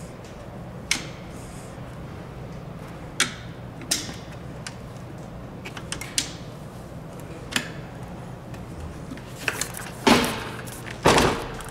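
Sharp, separate clicks of plastic push rivets and a plastic hip guard being pressed and snapped into place with a small metal tool, several seconds apart. Near the end come two louder scuffs as the seat is handled.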